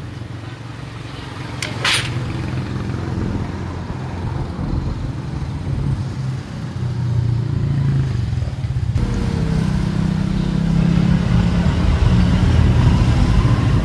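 Kawasaki Barako motorcycle's single-cylinder engine running steadily, with a sharp click about two seconds in; from about nine seconds in it runs louder.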